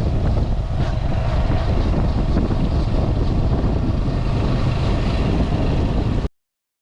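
A motor vehicle running, with heavy wind buffeting the microphone; it cuts off suddenly about six seconds in.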